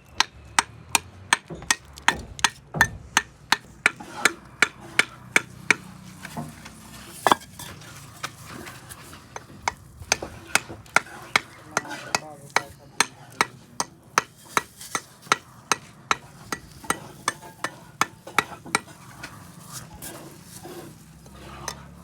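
Repeated hard hammer strikes on a construction job, about two to three a sharp metallic blow each second, steady at first and then more irregular with short pauses.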